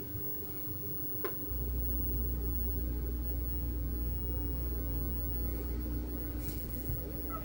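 Toshiba 13-inch CRT TV/VCR combination powering up: a sharp click about a second in, then a steady low hum that carries on, with a couple of faint clicks near the end.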